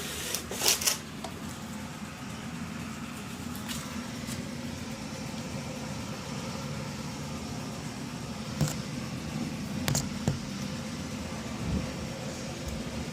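Steady rain falling, heard as an even hiss, with a few sharp clicks: one about a second in and a cluster around eight to ten seconds in.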